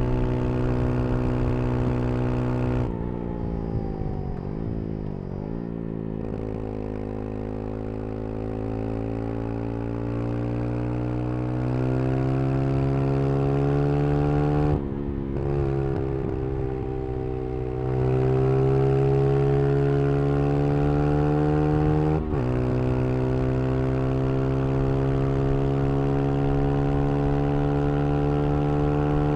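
Single-cylinder engine of a Brixton Crossfire 125 XS motorcycle. About three seconds in it eases off and its pitch falls, then it pulls up through the gears, the note rising slowly with a sharp break at a gear change about halfway and again about three quarters through.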